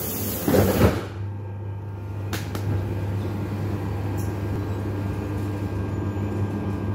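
Metro train's sliding doors closing: a hiss ending in a closing thump about a second in, followed by the steady low hum of the metro car.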